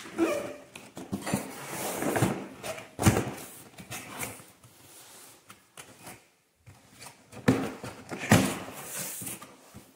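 Cardboard packaging being opened and handled: irregular scraping and rustling with a few sharp knocks, and a brief lull in the middle.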